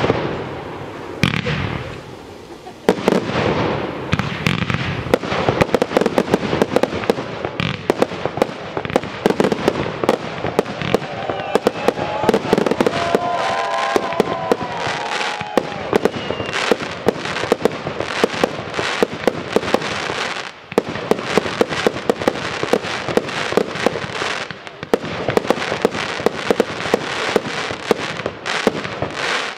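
Fireworks display: a sharp bang at the start that fades out, then from about three seconds in a dense, unbroken barrage of bangs and crackling, many reports a second.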